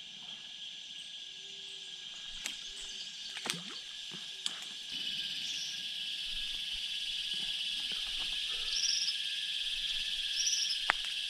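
Steady, high insect chorus of trilling crickets, with a few short high chirps in the second half and several sharp clicks.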